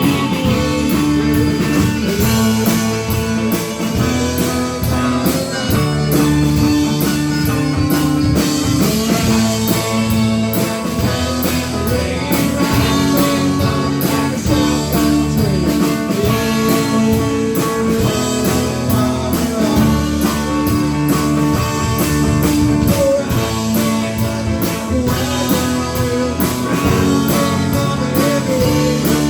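Live rock band playing, with guitar to the fore over bass and drums keeping a steady beat.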